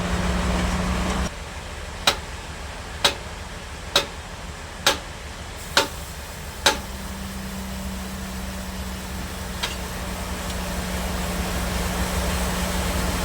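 Sawmill bandsaw machinery running with a steady low hum. Just over a second in, the hum drops away and six sharp clicks come at about one a second. The hum then returns and runs on.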